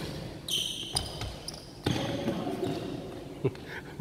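Badminton rally: sharp cracks of rackets striking the shuttlecock, about three over a few seconds, and sneakers squeaking on the wooden court floor, all echoing in a large hall.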